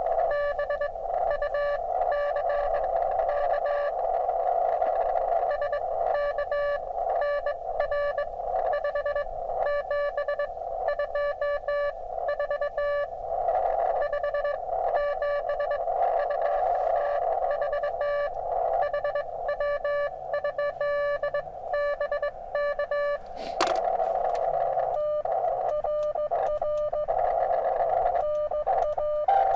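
Morse code (CW) from an amateur radio transceiver: a steady tone keyed on and off in dots and dashes over a band of receiver hiss, carrying a contact's call signs, 579 signal report and location. A single sharp click about three quarters of the way through.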